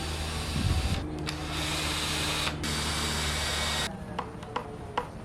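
Cordless impact driver running as it drives a screw into pallet wood, stopping and starting briefly, then cutting out about four seconds in. A few sharp clicks follow near the end.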